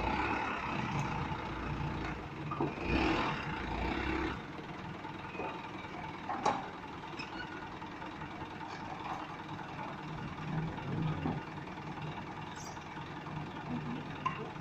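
Light truck's engine running at low speed as the truck creeps and manoeuvres, louder in the first few seconds, with a few short knocks.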